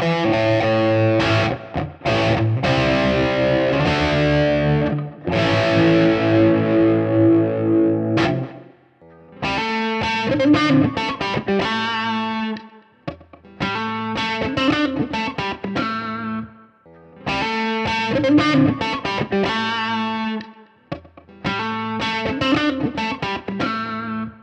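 Electric guitar with overdrive, played through a Kemper profiler on a Super Reverb profile with a Tube Screamer-style drive, demonstrating a coil-split humbucker. A sustained distorted chordal riff runs for about eight seconds on the bridge pickup; after a short break the same short lead phrase is played four times with brief pauses, on the neck pickup in full-humbucker and coil-split settings.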